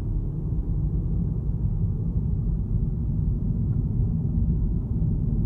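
Steady low rumble of road and engine noise heard from inside a moving car at speed.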